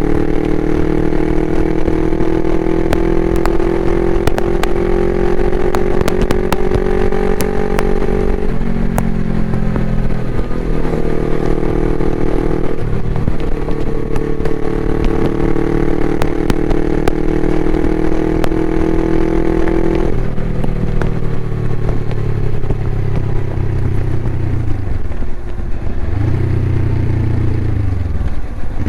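Suzuki GS500E's air-cooled parallel-twin engine through a Takkoni aftermarket exhaust, pulling steadily up through the revs, dropping in pitch at a gear change about a third of the way in, climbing again, then falling away about two thirds in as the bike slows and runs at low revs. Sharp crackling clicks are scattered over the first third.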